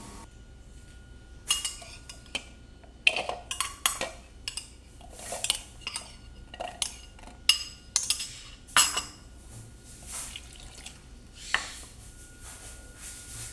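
Kitchen utensils clinking and scraping against cookware in irregular knocks, some with a short metallic ring.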